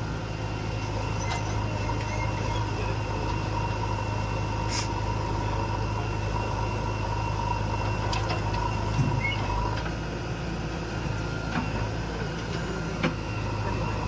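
Heavy diesel engine running steadily with an even low drone, with a few short clicks and knocks on top.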